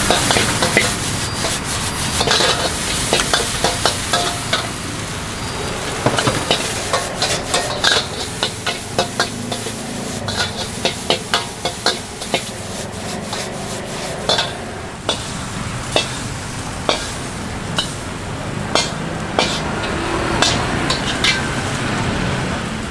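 Food sizzling as it is stir-fried in a pan, with a spatula clacking and scraping against the pan many times.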